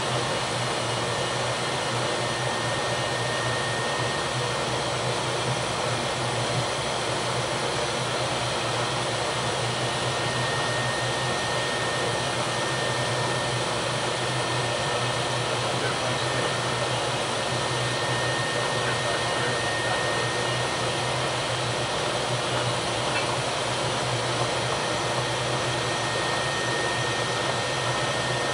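Steady machinery and ventilation noise inside the engineering space of a Knox-class frigate's steam propulsion plant: an even, unbroken rush with a low hum and a thin, steady high whine.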